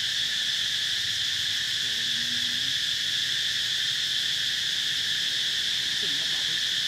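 Steady, high-pitched insect chorus of crickets or cicadas, droning without a break.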